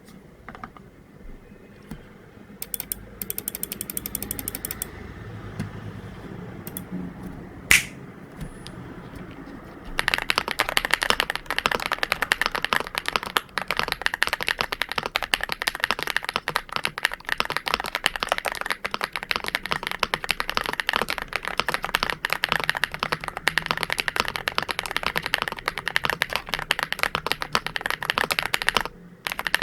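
MCHOSE GX87 mechanical keyboard with Matcha Latte switches being typed on: a few scattered clicks at first, then about a third of the way in, fast continuous typing with rapid key strokes, pausing briefly near the end.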